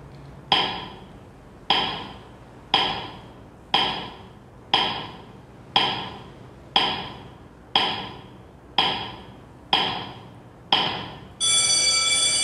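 Countdown-timer sound effect: a short ringing tick about once a second, about eleven in all. In the last second an alarm-clock ring takes over, marking that the time is up.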